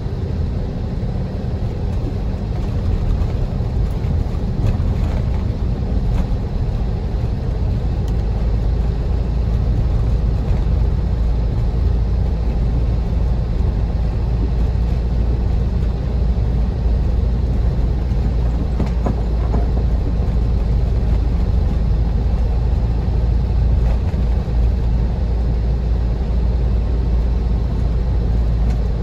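Car driving on rough, snow-covered roads: a steady low rumble of road and engine noise.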